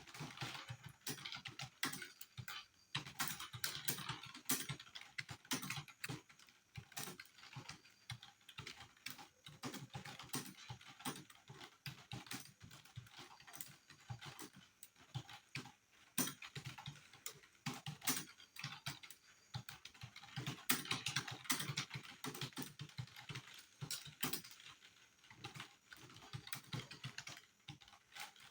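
Fast, continuous typing on a computer keyboard: a dense, irregular run of key clicks with the heavier thud of the space bar mixed in, as text is typed at about 40 words a minute.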